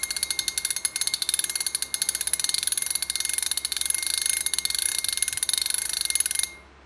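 Shimano Stradic 2020 spinning reel's drag clicking rapidly as the spool turns against it: a firm, crisp ratchet click that stops abruptly near the end.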